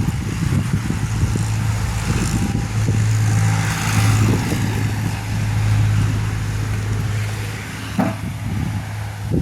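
An engine running steadily with a low hum, and a single sharp knock about eight seconds in.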